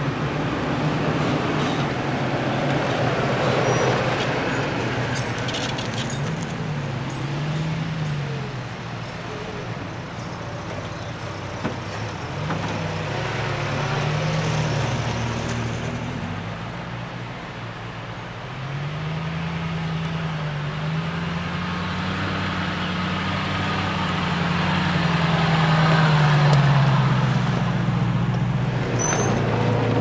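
Off-road vehicles, a Toyota Tacoma pickup and then a black SUV, driving slowly past one after the other on a dirt trail. Their engines rise and fall in pitch as they work over uneven ground, with tyre and trail noise underneath, loudest a little before the end.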